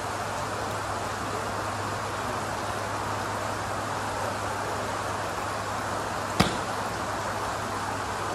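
Steady hiss of rain over a low hum, broken once about six seconds in by a single sharp crack as a Mizuno MP-33 forged blade iron strikes a golf ball off a range mat.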